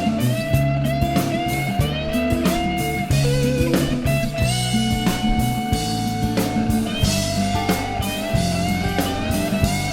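Rock music with electric guitar lines that bend and slide, over bass and a steady drum beat; an instrumental passage with no singing.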